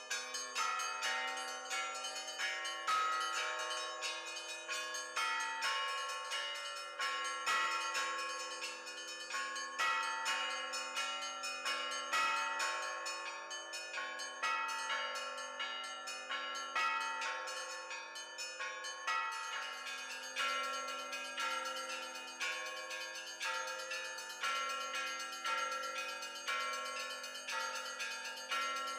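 Russian Orthodox church bells rung by hand: quick, rhythmic strikes on several small, high bells over the long ringing tones of larger, lower bells.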